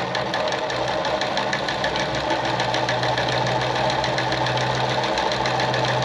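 Singer 306M heavy-duty sewing machine running at a steady speed while sewing a zigzag stitch from a disc cam: a steady motor hum under rapid, even ticking of the needle mechanism.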